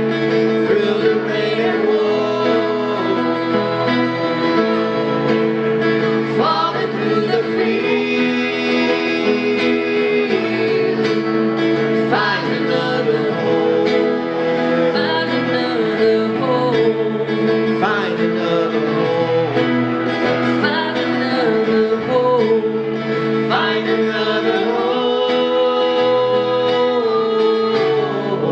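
Live acoustic folk-country song: two acoustic guitars played together with singing over them.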